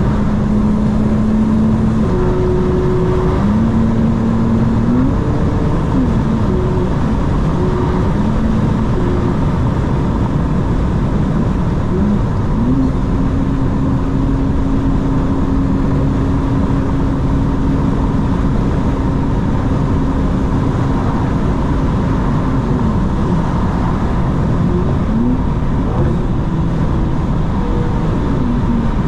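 BMW M4 Competition xDrive's twin-turbo inline-six running while the car is driven, over steady road noise. Its pitch holds steady for long stretches and rises and falls a few times as engine speed changes.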